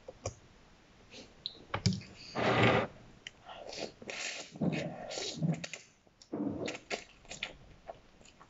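Slurping instant noodles and chewing, in a few noisy slurps, the loudest about two and a half seconds in. Wooden chopsticks click now and then against the metal pot.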